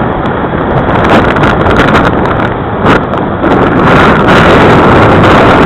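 Heavy wind buffeting the microphone: a loud, dense rushing rumble that swells and eases with the gusts.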